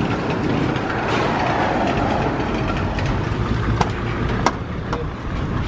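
Steady street and traffic noise, then sharp clicks about four seconds in as a minibus's sliding side door is unlatched and pulled open along its rail.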